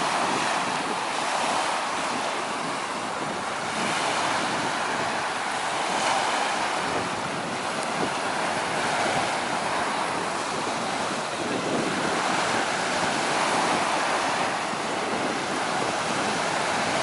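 Surf washing onto a beach, a steady rush of breaking waves that swells and eases every few seconds.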